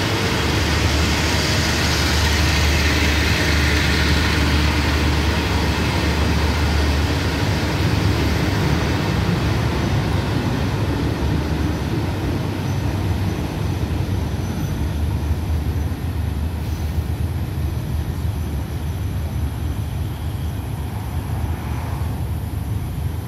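Passenger coaches of a diesel-hauled express train rolling past along the platform, a steady rumble of wheels on rail. The higher part of the noise fades after the last coach goes by about halfway through, leaving a lower rumble as the train pulls away.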